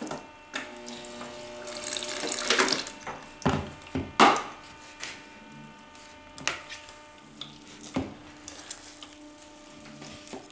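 A short pour of water from a countertop water dispenser into a plastic bowl of stiff bread dough, for about the first three seconds, then a metal spoon knocking and scraping against the bowl as the water is worked into the dough.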